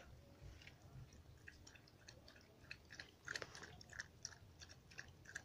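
A dog eating from a bowl: faint, irregular chewing and clicking that grows busier from about a second and a half in.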